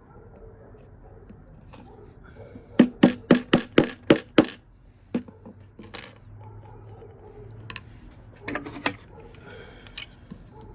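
Small metal tool tapping on the metal pin in a DJI drone propeller's hub to drive it out: a quick run of about eight sharp metallic taps, then a single tap and a short cluster of a few more.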